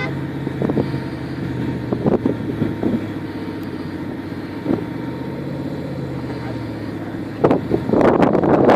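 Off-road 4x4 vehicle engine running steadily, with a few short knocks, then a sudden jump to a much louder rough rushing noise near the end.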